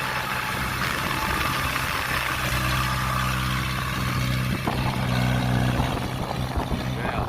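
Kubota combine harvester's engine running steadily under working load, with the clatter of its threshing machinery over it. The engine note shifts slightly about two-thirds of the way in.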